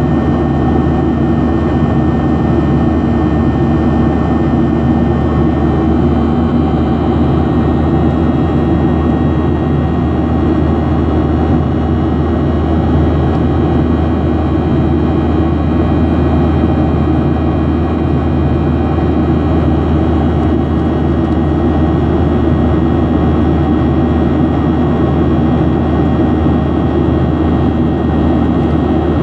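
Steady jet engine and airflow noise inside an airliner cabin during the climb after takeoff, with a few faint, steady high tones over a deep, even roar.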